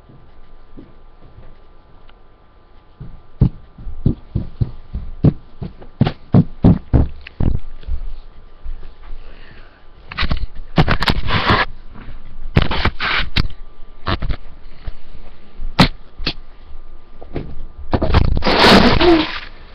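Handling noise on a carried webcam's microphone. First a quick, irregular run of sharp knocks and taps, then several loud scraping rubs lasting a second or two each, the loudest near the end.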